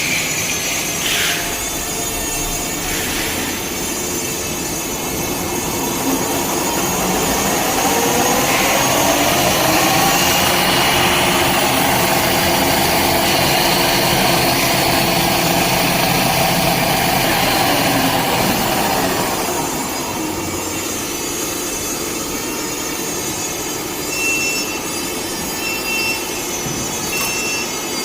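Film slitting and rewinding machine running. About a quarter of the way in, its whine rises in pitch as it speeds up, then holds steady and louder for about ten seconds before winding back down. Near the end come a few short high beeps.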